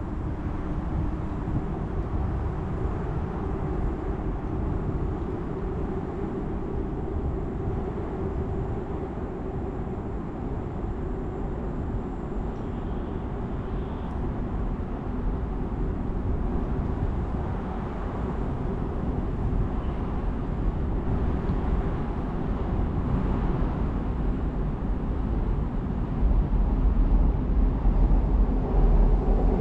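Train crossing the railway bridge: a steady, continuous low rumble that grows louder near the end.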